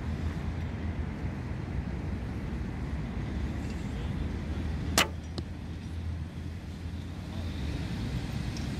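A single shot from a 35-pound Soviet LFL sport bow: one sharp snap of the string about five seconds in, followed by a fainter click about half a second later, over a steady low background rumble.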